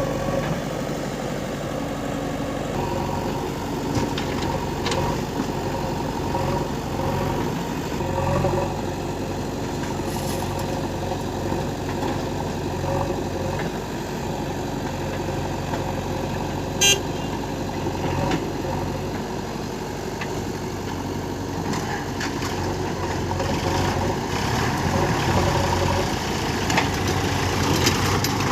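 Diesel engines of a backhoe loader and tractors running steadily at work. A single brief, sharp sound stands out about seventeen seconds in.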